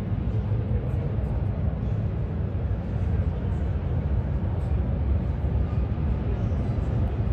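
Busy exhibition-hall ambience: a steady low rumble with a faint murmur of visitors' voices.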